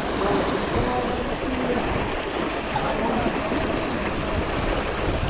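Steady rush of water and wind noise aboard a sailing yacht under way.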